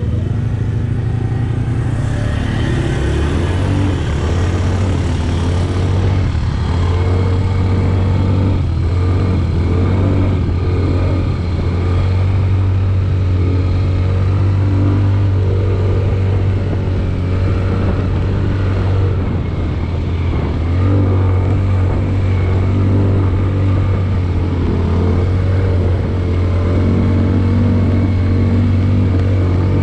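Motor vehicle engine running loud and close, a steady low drone that holds for the whole stretch, dipping slightly around two-thirds of the way through.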